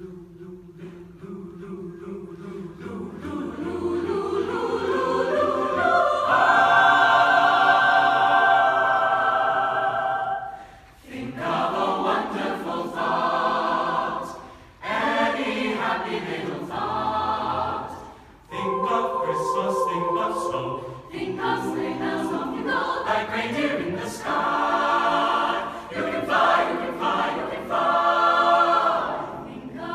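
Chamber choir singing the opening of a Disney song medley: a soft held chord swells to a loud sustained chord over the first several seconds, then the choir goes on in shorter sung phrases with brief pauses between them.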